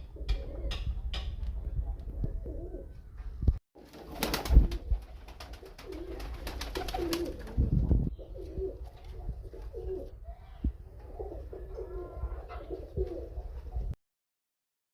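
Pigeons cooing in repeated low calls, with a run of sharp clicks and rustling partway through. The sound cuts off about a second before the end.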